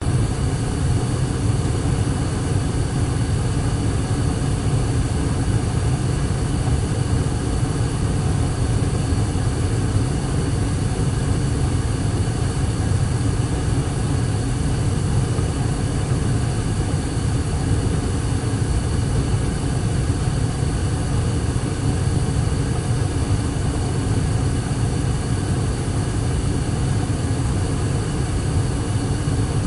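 A furnace running: a steady low roar with faint constant hum tones over it.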